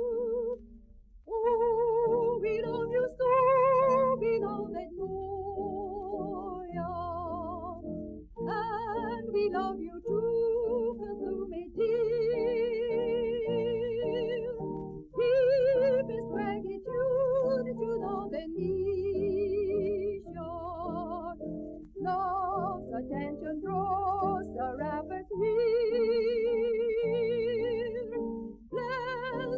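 Devotional hymn sung in a high voice with strong vibrato over sustained accompaniment chords, phrases of one to two seconds with short breaths between.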